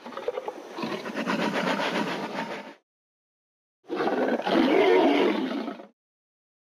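Two dinosaur roar sound effects: a long rough growling roar of about three seconds, then after a second of silence a second, lower-pitched roar of about two seconds.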